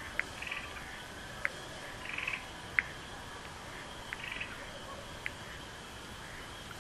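Spring peepers calling from a marsh: short, sharp, high peeps about every second and a bit, with three brief trills, over the steady high hum of a more distant peeper chorus.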